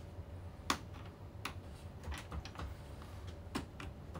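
A string of light, irregular clicks and taps, about ten in four seconds, with the sharpest one about two-thirds of a second in, over a low room hum.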